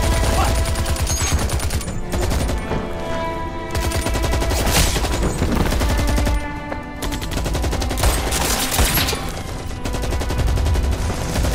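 Sustained automatic gunfire, many weapons firing rapid overlapping bursts, with dramatic background music underneath.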